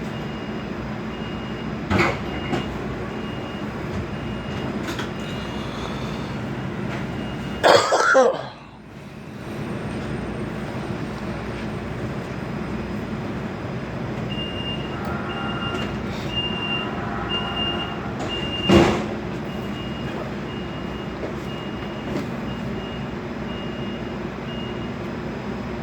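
A person coughing three times over the steady rumble of a moving vehicle: a short cough about two seconds in, a loud one about eight seconds in, and another about nineteen seconds in. A faint high beeping pulses on and off in the background.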